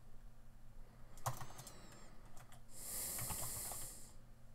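A few scattered keystrokes on a computer keyboard as a file path is typed, with a soft high hiss lasting about a second near the end.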